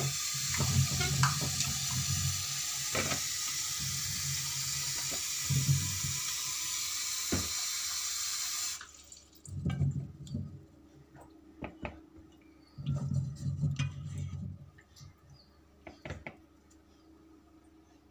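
Tap water running into a steel bowl of tomatoes in a sink, cut off suddenly about nine seconds in. After that come quieter splashes and soft knocks as the tomatoes are handled in the water and lifted out onto a steel plate.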